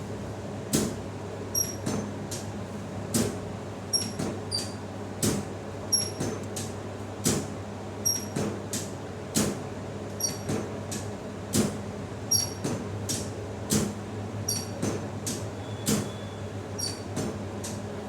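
Repeated sharp taps or clicks, about one to two a second and unevenly spaced, several with a short high squeak, over a steady low hum.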